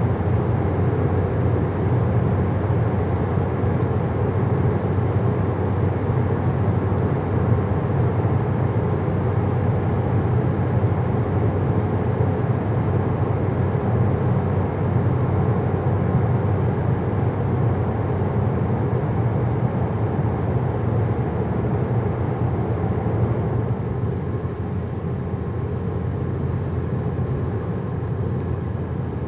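Car road noise heard from inside the cabin while driving at highway speed through a road tunnel: a steady low drone of tyres and engine. It gets a little quieter about three-quarters of the way through.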